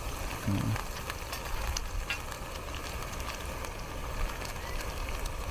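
Small cooking fire hissing steadily with a few faint crackles while it heats a tin of canned pork, with a low rumble underneath.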